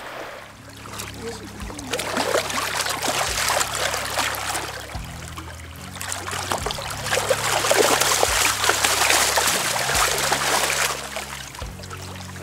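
River water splashing and sloshing as a large fish thrashes at the surface while it is scooped into a flexible plastic tub. The splashing starts about a second in, is heaviest in the middle and eases off near the end.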